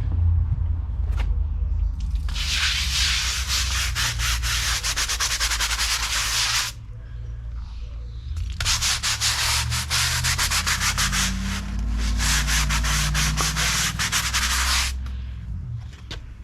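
Pressure washer jet spraying onto patio paving slabs in two long passes of hissing spray, from about two seconds to nearly seven seconds and again from about eight and a half to fifteen seconds, with the machine's low rumble running underneath.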